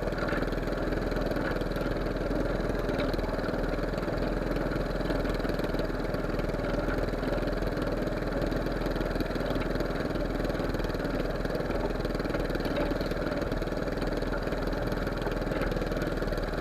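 Small fishing boat's engine running steadily at idle.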